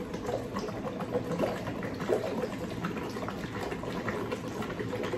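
Drink sucked up through a plastic straw from a large cup, with irregular little slurping and gurgling crackles.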